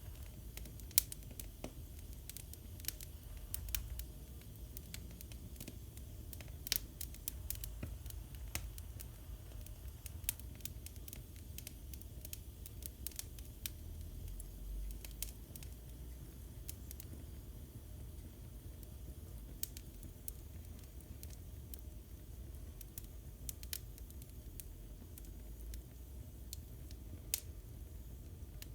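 Wood fire burning in a fireplace: a low rumble of flames with irregular sharp crackles and pops from the burning logs.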